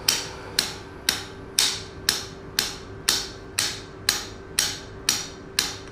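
Shockwave therapy handpiece firing against the body at its lowest frequency setting of 2: a sharp tapping click twice a second, evenly spaced, with a faint steady hum underneath.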